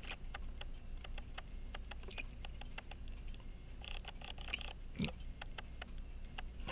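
Pocket watch being wound by hand: the click ratcheting over the ratchet wheel in a run of small, irregular clicks, now catching after its click spring was bent back. A brief rustle and a soft knock come about four and five seconds in.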